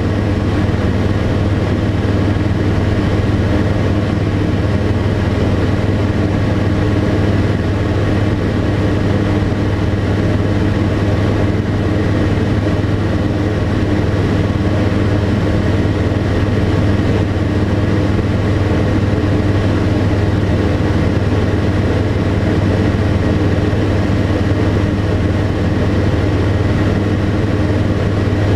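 Tecnam P92 light aircraft's Rotax 912 flat-four engine and propeller running at steady power in flight, a loud, unchanging drone with a deep hum.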